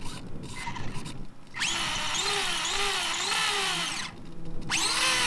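The motor and drivetrain of a toy RC monster truck revving while the truck is held off the ground, its wheels spinning freely. A whine wavers up and down in pitch for about two seconds, stops, then starts again near the end with a rising pitch.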